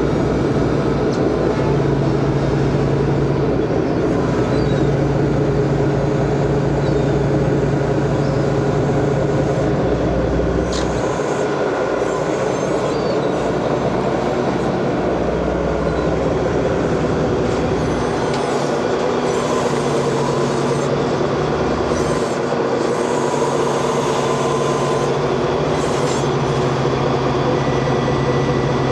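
A fishing vessel's diesel engines running with a loud, steady drone and a low hum that fades in and out.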